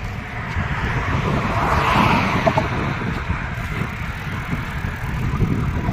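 Road traffic going by, with wind rumbling on the microphone; one vehicle passes close, loudest about two seconds in and fading after.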